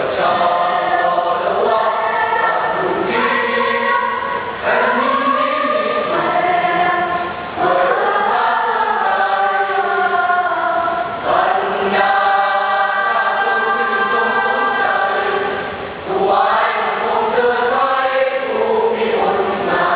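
School choir singing in several voice parts, holding sustained chords in phrases with brief breaks between them.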